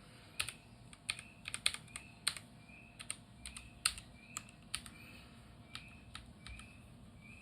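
Computer keyboard keys being pressed one by one in an irregular run of sharp clicks, as each key is tried out before the keyboard is sent. The presses come thick and loud for the first few seconds, then thin out and grow fainter.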